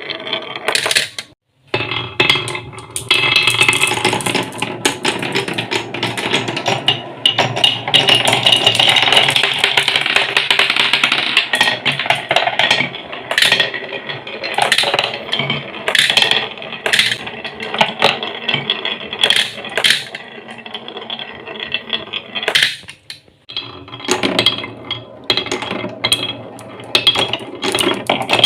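Marbles rolling and clattering down wooden marble-run tracks and slopes, with many quick clicks as they knock against the blocks and drop. The sound breaks off briefly twice.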